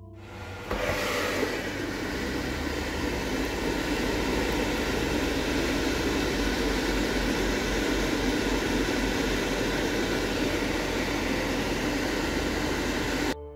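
Philips air fryer cooking: a steady rushing noise that starts about a second in and cuts off suddenly near the end.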